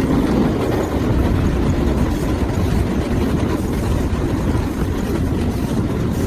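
Passenger train running along the track, heard from on board: a loud, steady rumble.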